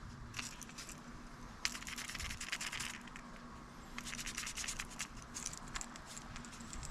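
Faint scratching and rubbing with small clicks as a crankbait fishing lure is handled close up.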